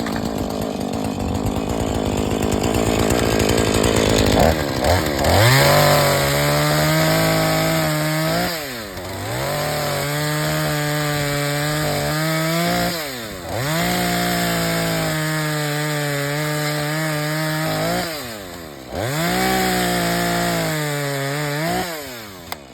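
Two-stroke chainsaw running at high revs and cutting: a rough, noisy stretch for the first few seconds, then a steady high engine note that dips sharply and climbs back about four times.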